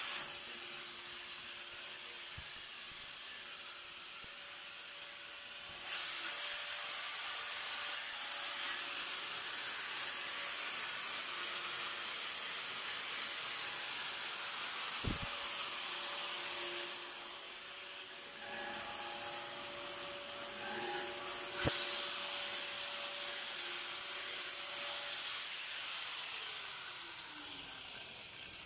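Aerosol spray-paint can hissing in long steady bursts as paint is sprayed onto a steel table frame, with a faint steady hum underneath and two sharp clicks midway.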